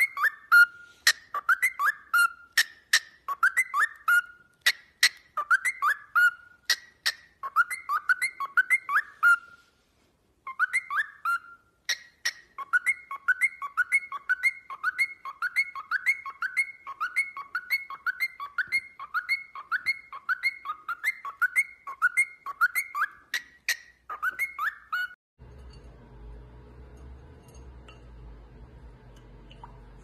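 Cockatiel whistling a short phrase over and over, with sharp clicks among the notes, at about one phrase a second. After a brief pause about a third of the way in, the whistling comes back faster and more continuous, then stops near the end, leaving a faint low hum.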